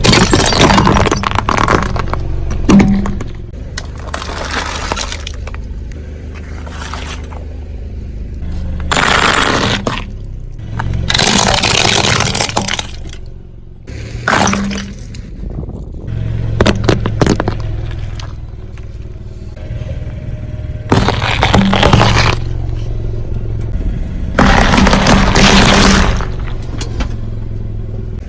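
Car tyre rolling over and crushing objects: a series of loud breaking and crackling bursts a few seconds apart, over the car's low, steady engine hum.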